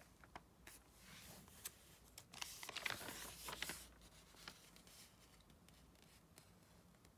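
Glossy magazine page being turned, a paper rustle about two and a half seconds in, with light handling clicks of the pages around it.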